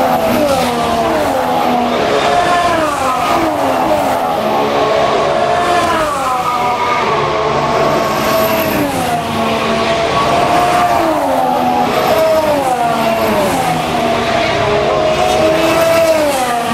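2014 Formula One cars, with 1.6-litre turbocharged V6 hybrid engines, passing one after another at high speed. Each engine note drops in pitch as the car goes by.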